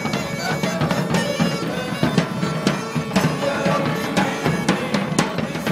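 Bagpipe playing a tune over its steady drone, with field drums beating a march.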